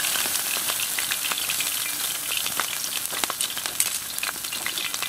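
Steaks sizzling on a grill grate over hardwood coals, a steady hiss with scattered pops and crackles, as the seared steaks finish over indirect heat.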